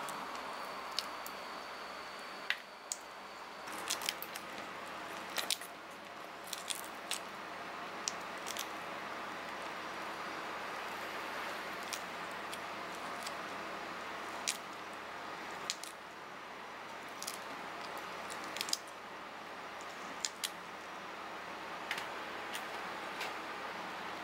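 Zebra mantis shrimp shell being peeled apart by hand: scattered small sharp clicks and crackles as the shell plates snap and pull away from the raw meat, over a steady background hiss.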